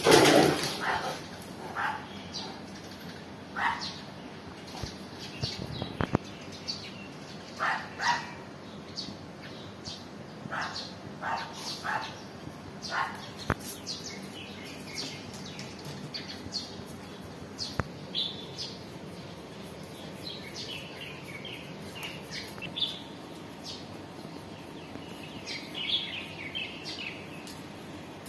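Small birds chirping on and off, with short high calls every second or so, over a steady outdoor hiss. There is one brief, louder sound at the very start.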